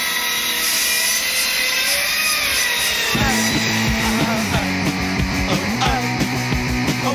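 A chainsaw running. About three seconds in, a punk rock band comes in with drums, bass and electric guitars.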